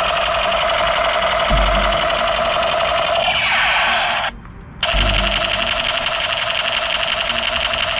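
Battery-powered light-up toy pistol's electronic firing sound effect: a loud, fast, buzzing rattle that slides into a falling sweep, stops for about half a second just after four seconds in, then starts again.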